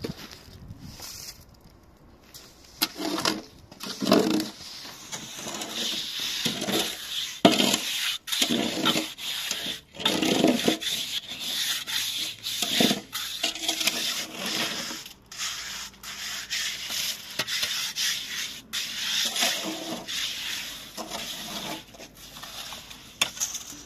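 Steel hand trowel scraping and smoothing wet cement mortar in irregular strokes.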